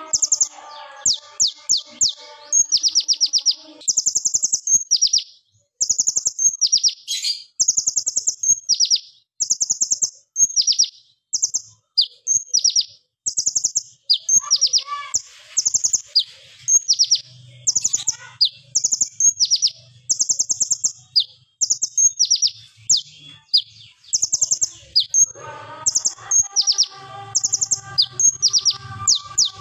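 Male kolibri ninja (Van Hasselt's or purple-throated sunbird) singing in a long run of short, very fast high-pitched rattling trills, repeated one after another like bursts of fire: the sharp, loud 'AK47' song prized in a lure recording. Fainter, lower warbling runs underneath at the start and again in the last few seconds.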